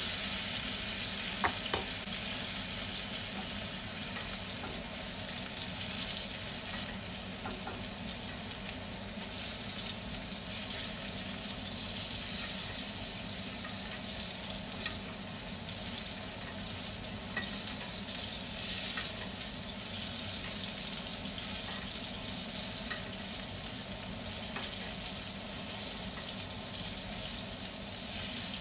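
Beef steak sizzling in hot fat in a cast-iron skillet, a steady frying hiss. Two sharp metal clicks sound about one and a half seconds in, with a few fainter clinks later as it is turned and basted.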